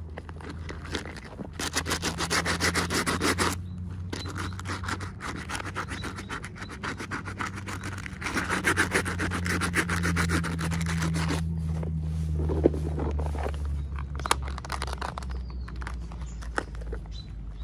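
Fast, repeated rubbing and scraping strokes in two long runs, over a low steady hum.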